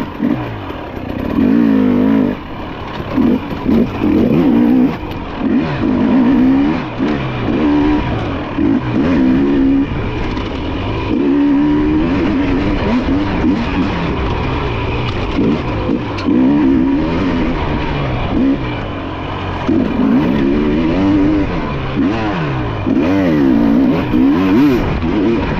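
Dirt bike engine running hard, its pitch rising and falling again and again as the throttle is worked on and off through a timed enduro test.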